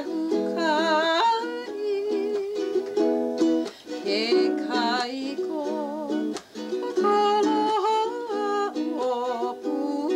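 A woman singing a Hawaiian song in a high voice with vibrato, accompanied by ukulele.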